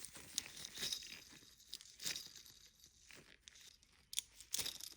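Faint irregular scraping, rustling and small clicks of a freshly washed tapered roller wheel bearing being handled and turned by hand, a worn bearing that feels as if it is not spinning properly.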